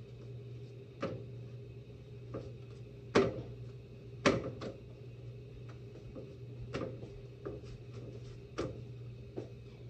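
Irregular sharp knocks and clacks from making corn tortillas by hand, about nine in all, the two loudest about three and four seconds in, over a steady low hum.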